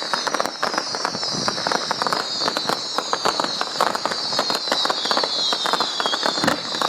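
Fireworks crackling: a dense, rapid crackle of small pops with overlapping high whistles that slide down in pitch.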